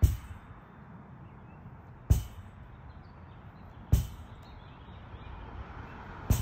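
Lacrosse ball striking a rebounder net in the rhythm of wall-ball passes: four sharp hits about two seconds apart.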